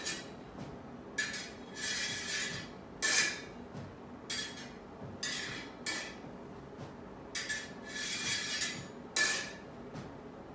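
Steel smallsword blades clinking and scraping against each other in a series of about eight or nine contacts, some short ringing taps and some longer slides of blade along blade, as the blades engage and thrust.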